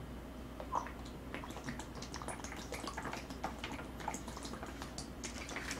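A person gulping orange juice straight from a large plastic bottle: faint, soft swallows and small liquid clicks and drips, irregular and fairly even in level.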